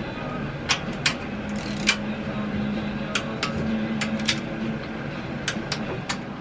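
Click-type torque wrench working the cylinder-head bolts of a Briggs & Stratton engine to their final torque of 16 foot-pounds. A few sharp, separate clicks come at irregular intervals over a steady low hum.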